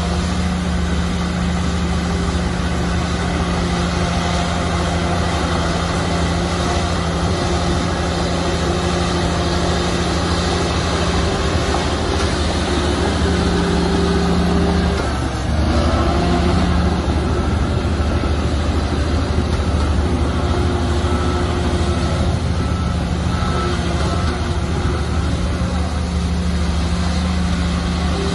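Heavy diesel engine of earthmoving machinery running steadily under load. Its note dips briefly about halfway through, then picks back up.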